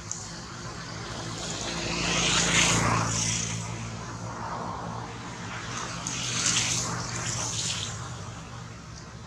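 Steady low engine hum in the background, swelling louder twice, about two seconds in and again around six seconds in.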